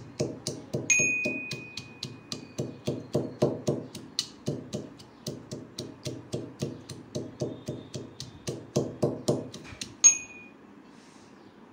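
Steel pestle pounding ginger and green chillies in a small steel mortar, a quick steady rhythm of about four strikes a second, with metallic ringing on a few strokes. The pounding stops about ten seconds in with one louder clang.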